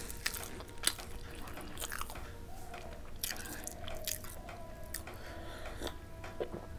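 A person chewing a mouthful of rice and curry, with scattered soft wet mouth clicks.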